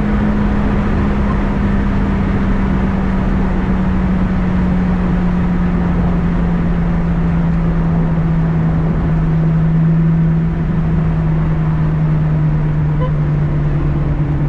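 Lotus Exige engine running at a steady, low drone, its pitch slowly falling as the car eases off, with a change in the note about ten seconds in, over constant tyre and road noise.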